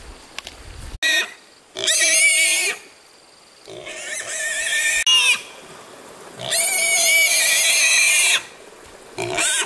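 A pig squealing loudly and repeatedly as it is carried by its legs. There is a short squeal, then long shrill squeals of a second or two each, about every two seconds.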